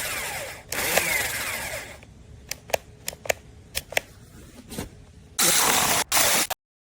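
Saker 6-inch cordless electric mini chainsaw running in two short bursts, its motor and chain whirring. After that come several sharp clicks, then a loud rushing noise of about a second that cuts off abruptly.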